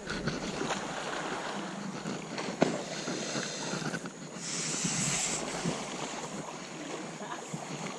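Water sloshing and splashing right at the camera, with scattered knocks against it and wind on the microphone; a sharp knock a little over two and a half seconds in, and a louder splash about four and a half seconds in.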